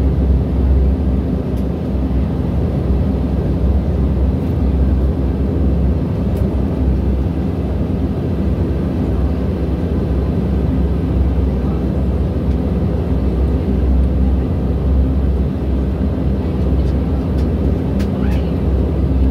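Steady drone of a Dash 8 Q400's Pratt & Whitney PW150A turboprop engines and propellers, heard from inside the cabin as the aircraft taxis. A few faint clicks come near the end.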